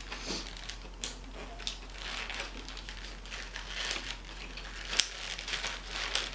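Close-miked eating of fast food: chewing with irregular crackling and crinkling, and one sharp click about five seconds in.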